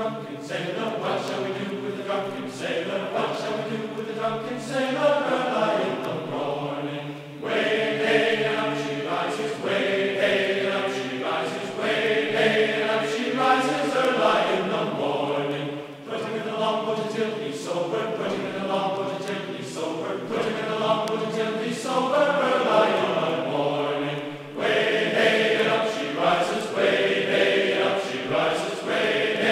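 A choir singing a slow chant in long held phrases, with a short break about every eight seconds.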